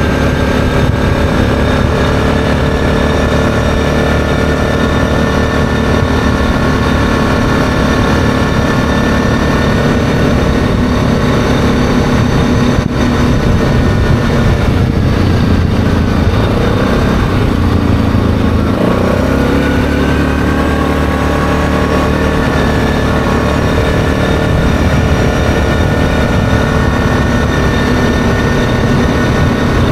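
ATV engine running steadily while riding along a road. About halfway through, the revs dip briefly and then climb back up.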